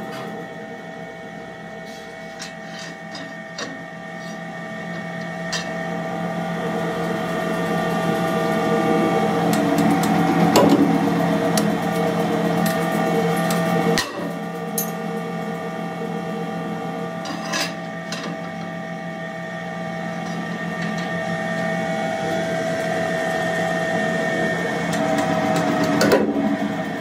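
Punch press running with a steady machine hum of several held tones that swells slowly, with a few sharp metal knocks as the steel wheel-disc blank is shifted and punched. A loud knock comes about halfway through, after which the hum drops suddenly, then builds again.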